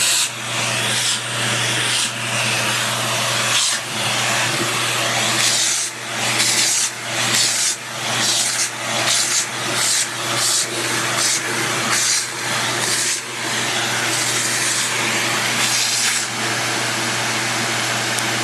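Vacuum cleaner running with a steady hum and hiss that dips and swells over and over as the nozzle is passed over a Maltese dog's coat.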